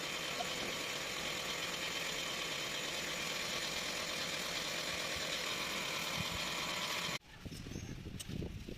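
Toyota hybrid brake pump motor running with a steady buzzing whine, then shutting off abruptly about seven seconds in. A quieter low rumble follows.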